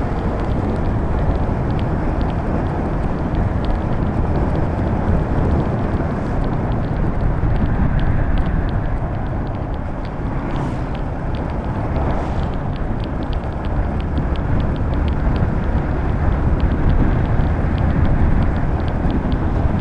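Yamaha Sniper 150 motorcycle running steadily at cruising speed, its single-cylinder four-stroke engine under a constant rush of wind and road noise.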